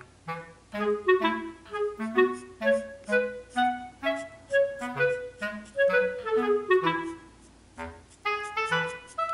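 Background music: a light woodwind tune of short, separate notes over a bass line, with a brief pause near the end.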